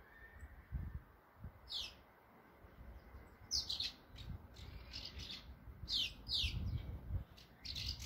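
Swallows calling around their nest: short, sharp chirps that drop in pitch, in several quick clusters, with a low rumble underneath.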